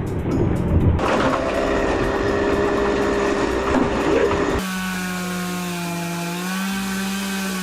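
Chainsaw running at high revs while cutting wood, a steady engine whine. The sound changes abruptly about halfway through to a cleaner, steady engine pitch that steps slightly near the end.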